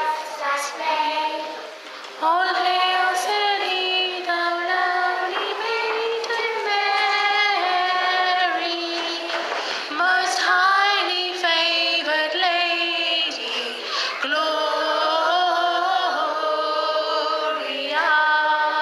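Group of young girls singing a song together in held, stepping notes, with short breaks between phrases.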